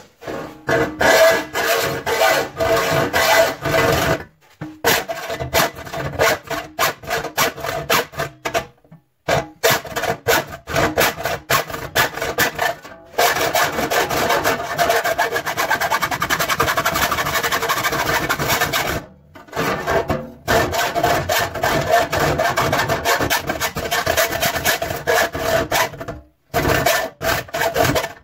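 A worn saw blade cutting through the sheet steel of a dryer door: a fast, harsh rasping in long stretches broken by a few short stops. The blades are worn down and cut poorly.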